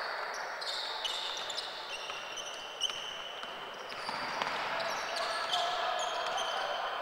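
Basketball game sounds: sneakers squeaking again and again on a hardwood court, with a ball bouncing and a few knocks, over the steady murmur of a large hall with voices.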